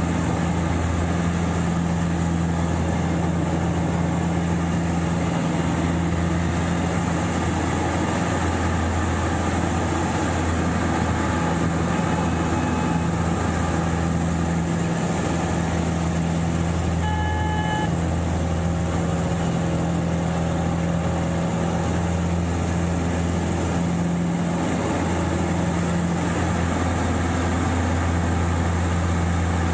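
Pitts Special S2A's four-cylinder Lycoming aero engine and propeller droning steadily through aerobatic manoeuvres, with a steady hiss above it. A brief beep sounds about seventeen seconds in.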